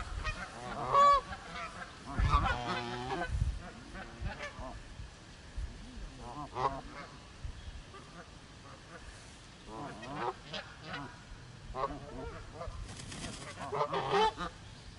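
Geese honking: a series of harsh, pitched calls at irregular intervals, loudest about a second in, around two to three seconds in, and again near the end.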